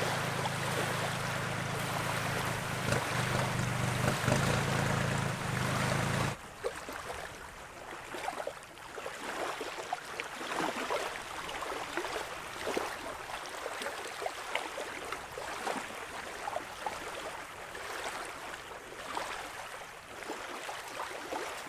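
Small waves lapping on a sandy lakeshore. For the first six seconds a louder even rush with a low steady hum lies over it; this cuts off suddenly, leaving quieter, gentle lapping with small scattered splashes.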